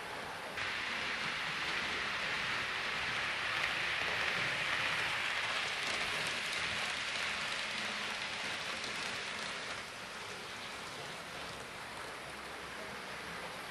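Hornby OO gauge Class 390 Pendolino model train running on the layout track: a steady hiss of the motor and wheels rolling on the rails. It gets louder suddenly about half a second in and eases off after about ten seconds.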